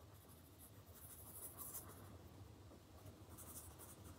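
Faint scratching of a Derwent Chromaflow coloured pencil on paper as a colour swatch is filled in: two spells of quick strokes, the first about a second long and the second shorter near the end.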